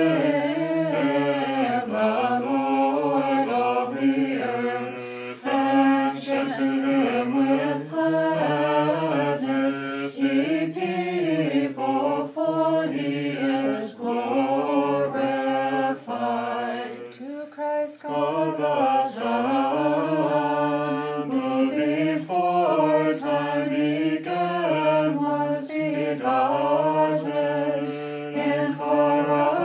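Unaccompanied voices singing a Nativity carol in Znamenny chant, in English.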